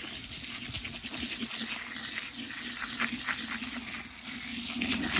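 Water gushing from a hose, with small rattling clicks through it, as feed is wetted down for soaking.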